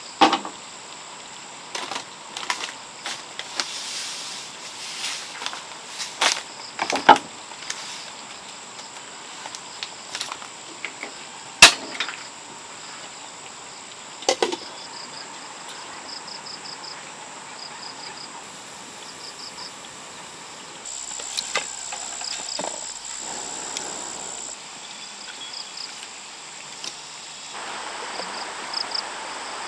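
Steady insect buzzing with short repeated cricket chirps, broken by scattered sharp knocks and clicks in the first half, the loudest a single sharp knock about twelve seconds in.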